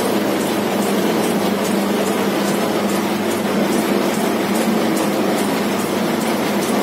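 Spiral dough mixer running: a steady motor-and-drive hum with a faint, regular light ticking.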